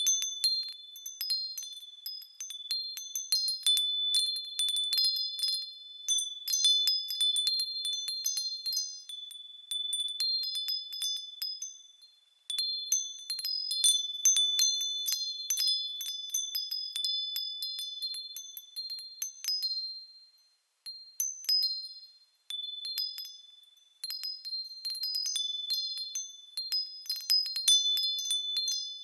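Small metal bells swaying and jingling, striking irregularly. Several high, clear ringing tones overlap. The ringing briefly fades out twice, about twelve seconds in and again just past the twenty-second mark.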